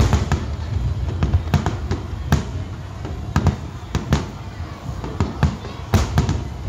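Aerial fireworks bursting in a dense, irregular string of booms and sharp cracks over a continuous low rumble.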